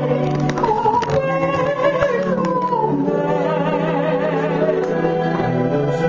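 Music: a wavering melody line over held, sustained notes, at an even level throughout.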